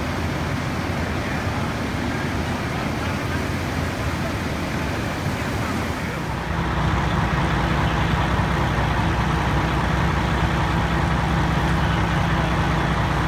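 Fire trucks' engines running steadily as a continuous mechanical drone. About six seconds in, a louder, steadier engine drone with a low hum takes over.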